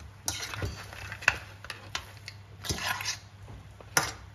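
Kitchen utensil clinking against cookware about eight times at an irregular pace, with a couple of short scrapes, as a finished noodle-and-crab stir-fry is handled.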